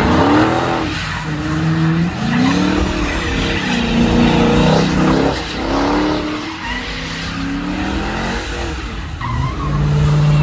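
Dodge Charger doing donuts on wet pavement: the engine is revved up and down again and again while the rear tires spin and skid, and it holds a louder steady note near the end.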